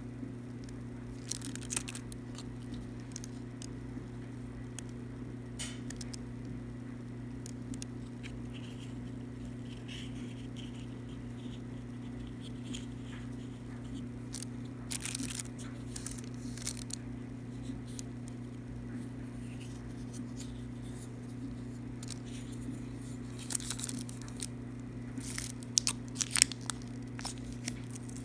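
Steady low hum throughout, with scattered clicks and short crinkling, crackling noises that come more often near the end.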